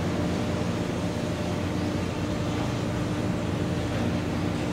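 Low, steady drone of tugboat diesel engines towing a ship on a line, with a constant hum of a few low pitched tones.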